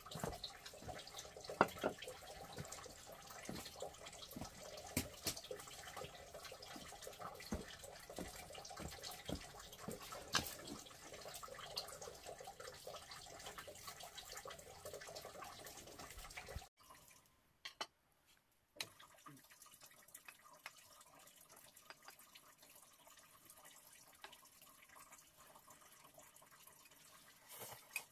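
Running water trickling and splashing, with many small clicks and knocks in it; about two-thirds of the way through it cuts off abruptly, a brief silence follows, then fainter, steadier water.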